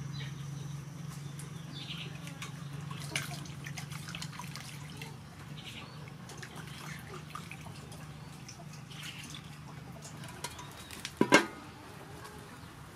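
Water splashing and dripping as peeled potatoes are rinsed by hand in a stainless steel bowl, in small scattered splashes, with one sharp knock a little before the end.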